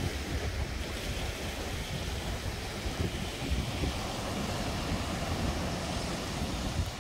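Ocean surf breaking and washing against rocky sea cliffs, with wind buffeting the microphone as a steady low rumble.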